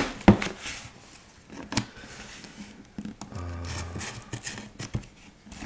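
Cardboard box being opened and handled by hand: scraping and rustling of the cardboard flaps and plastic wrap, with a few sharp knocks. A brief murmured voice comes in just past the middle.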